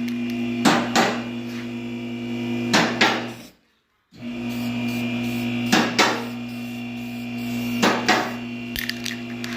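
Background music with a steady tone bed and a slow, even beat of paired hits about every two seconds, cutting out completely for half a second about three and a half seconds in.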